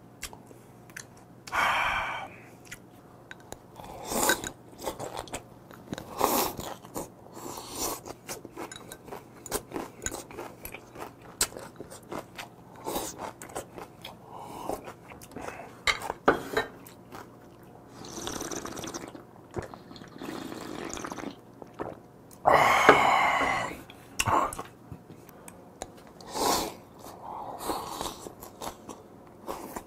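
Close-miked eating: chewing and crunching of raw squid and crisp vegetables from a cold spicy mulhoe, with many small mouth and chopstick clicks and sips of the broth. A louder, longer sip or slurp comes about 22 seconds in.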